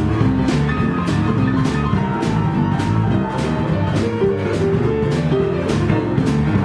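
Live blues band playing a boogie-woogie: digital piano with bass, electric guitar and drum kit, the drums hitting a steady beat a little under two strokes a second.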